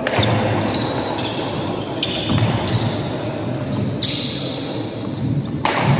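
Badminton rally: rackets striking the shuttlecock with sharp cracks about every second, six or so in all, echoing in a large hall over a steady murmur of spectators.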